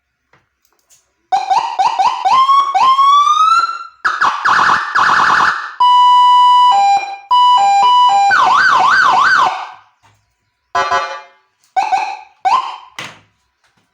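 Electronic siren module (Landun slim model) driving a 25-watt Narae horn speaker, stepping through its tones: a run of short rising whoops ending in one long rise, a rapid warble, a steady hi-lo two-tone, then a fast up-and-down yelp, with a few short bursts near the end.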